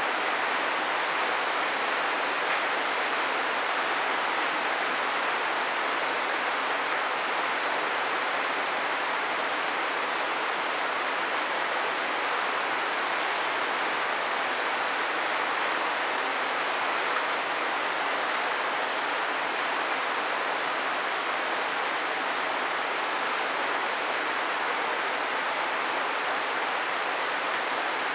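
Steady rain falling: an even, continuous hiss that neither builds nor breaks.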